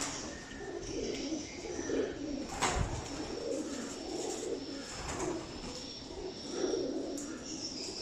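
Homing pigeons cooing, many soft coos overlapping one another, with a single sharp knock a little under three seconds in.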